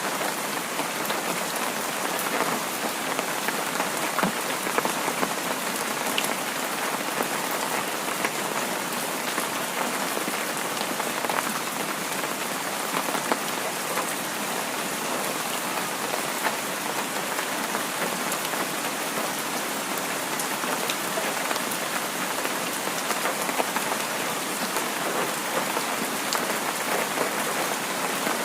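Heavy rain falling steadily: a dense, even hiss scattered with many small drop ticks.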